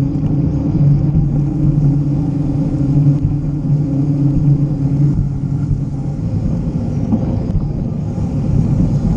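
Mountain bike tyres rolling fast on pavement: a steady low rumble with a droning hum that drops a little in pitch about five seconds in.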